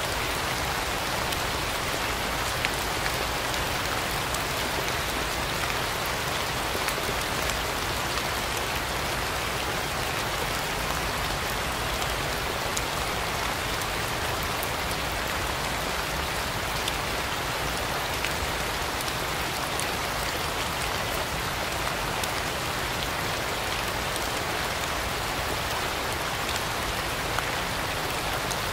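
Steady, even rain falling, with now and then a sharper single drop tick.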